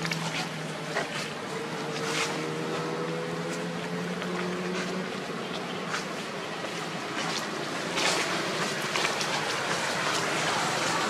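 Steady rushing outdoor noise with a low motor hum that stops about five seconds in, and a few scattered short clicks.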